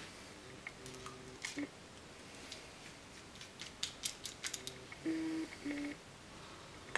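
Quiet handling of a freshly inked fountain pen and its ink bottle: scattered light clicks and taps, with a few short faint squeaks about a second in and again between five and six seconds.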